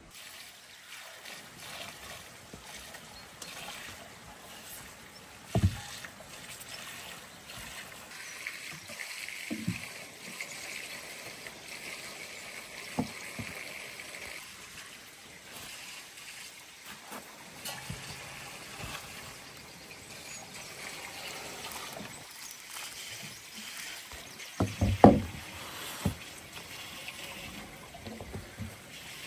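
A few short knocks of things being set down and handled on a wooden table, with the loudest cluster about 25 seconds in, over steady outdoor background noise.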